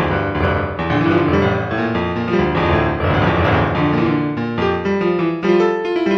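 Instrumental piano music, a run of quick notes over sustained lower chords.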